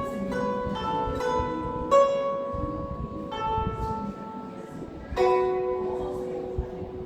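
Guzheng (Chinese zither) being played: single plucked notes and chords ring out and fade slowly, with the strongest plucks about two seconds and five seconds in.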